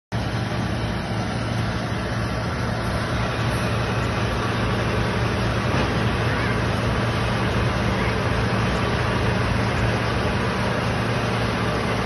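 Tractor engine running steadily under load, pulling a Maschio Trotter round baler through straw, with the baler's machinery running. A constant low hum sits under a dense, even mechanical noise.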